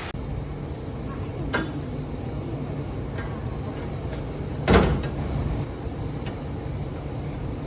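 Steady low hum of factory machinery, with a few sharp knocks over it, the loudest about halfway through.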